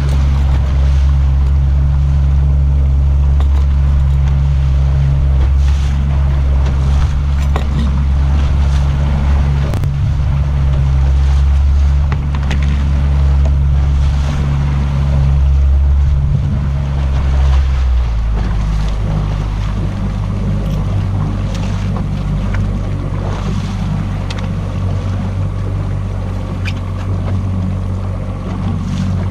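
Evinrude 90 outboard motor running steadily as the boat moves through choppy water, with wind and water noise. About two-thirds of the way through, the engine note drops lower and a little quieter.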